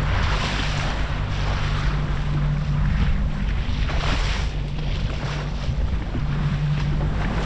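Small boat's engine running steadily under way, with wind buffeting the microphone and water rushing past the hull; the rush swells a few times.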